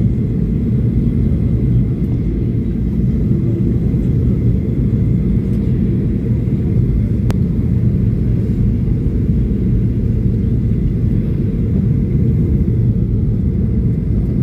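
Steady, loud low rumble of an airliner at the airport, even throughout with no change.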